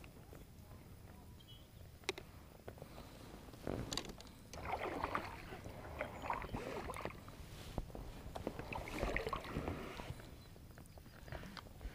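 Oars of a small inflatable dinghy rowing through calm water: swishing, splashing strokes a couple of seconds apart, with a few sharp knocks from the oars and gear.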